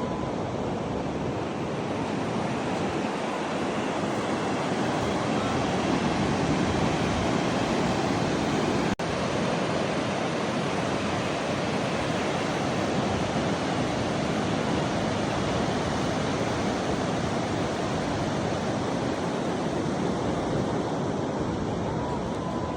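Steady rush of Pacific Ocean surf, with a very brief break in the sound about nine seconds in.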